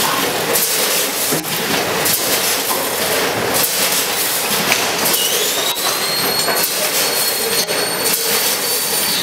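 Vertical packaging machine running: a steady mechanical hiss broken by repeated sharp clacks, with a high whine that rises about halfway through and holds.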